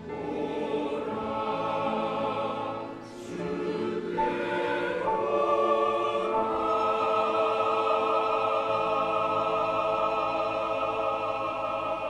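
Church choir singing the closing bars of a hymn, pausing briefly for a breath about three seconds in, then holding a long final chord.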